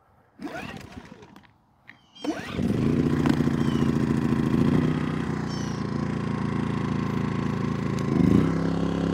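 Dinking DK2300i-M inverter generator being pull-started: a first pull of the recoil starter about half a second in spins the engine without catching, a second pull about two seconds in starts it, and the small four-stroke engine then runs steadily. Near the end its speed briefly surges and settles again.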